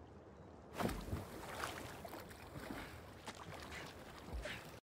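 Quiet underwater ambience that opens up, about a second in, into river water lapping and splashing around two swimmers at the surface, with a few sharper splashes. It cuts off suddenly near the end.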